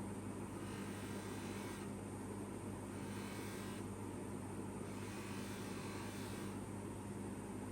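Electric polishing motor running with a steady hum, as a steel watch case and bracelet are polished. A hiss swells and fades in turns of about one to two seconds as the metal is worked against the wheel.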